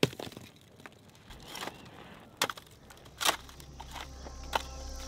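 Lumps of sulfur rock being broken apart and loaded by hand into a wicker basket: five or six sharp knocks and crunches of stone, spaced a second or so apart.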